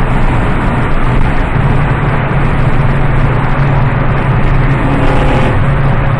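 Ford Focus 2.5's engine and exhaust running loud with a deep, steady drone that steps up in pitch about a second and a half in.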